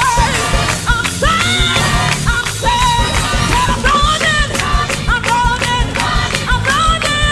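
Church choir singing an upbeat gospel song with instrumental accompaniment over a steady drum beat.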